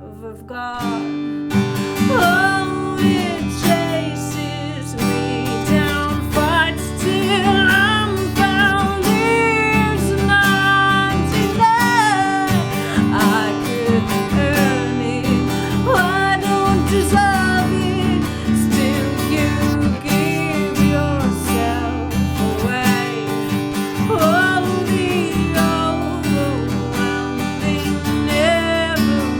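Live worship music: acoustic guitar strummed steadily, with a gliding melody line over the chords. It comes in after a brief drop right at the start.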